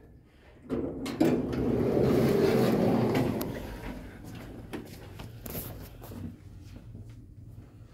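Thyssenkrupp traction elevator's automatic sliding doors opening: a few clicks, then a loud rolling slide about a second in that fades away by about four seconds, followed by scattered lighter clicks.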